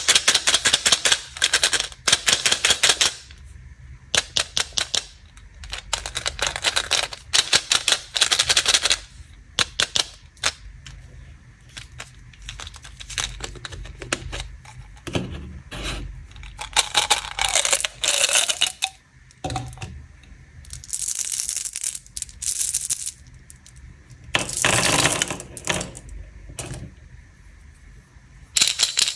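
Packaging and sweets being handled: repeated bursts of rapid crackling, clicking and rattling, each lasting a second or two, with short pauses between.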